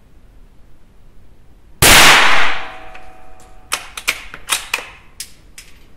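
A single .22 LR shot from a Remington 512 Sportsmaster bolt-action rifle, about two seconds in: one sharp, very loud crack that rings on for about half a second. Several sharp metallic clicks follow over the next two seconds.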